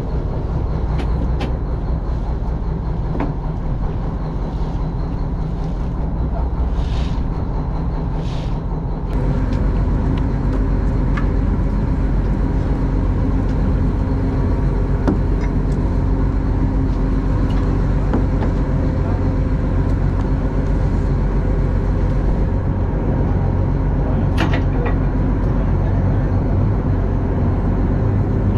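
Fishing boat's engine running steadily, getting louder about nine seconds in.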